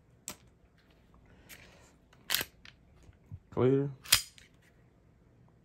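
Glock 26 Gen 5 pistol's slide being worked by hand to check it is clear: sharp metallic clicks, a loud one about two and a half seconds in and the loudest just after four seconds.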